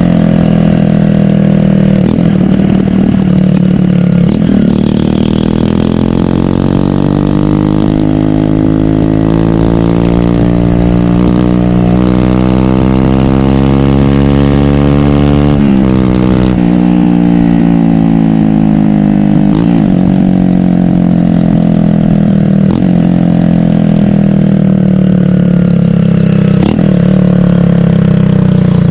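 A 150 cc single-cylinder motorcycle engine under way. Its pitch climbs steadily for about ten seconds under acceleration, drops sharply about halfway through, then winds down slowly. A few sharp cracks come during the slowdown.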